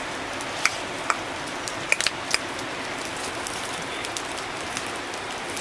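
Open wood fire with burning bamboo sticks crackling: a steady hiss with a handful of sharp pops in the first half.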